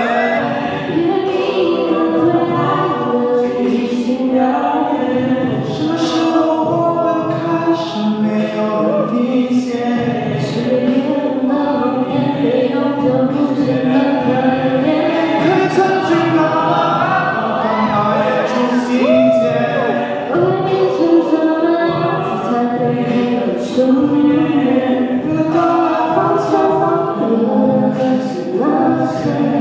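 A cappella group singing a Mandarin pop ballad: a lead voice over a choir of backing voices, with vocal percussion keeping the beat. The lead passes from a male to a female singer, and near the end the two sing as a duet.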